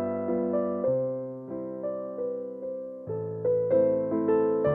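Background music: a gentle electric piano melody, notes struck about twice a second and left to fade.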